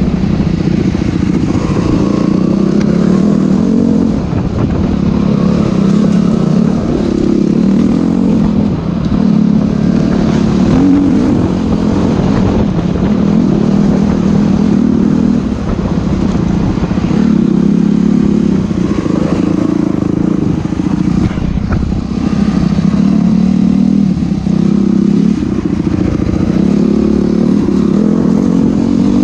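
Enduro dirt bike engine running hard on a trail ride, the revs rising and falling in repeated swells every couple of seconds as the rider works the throttle.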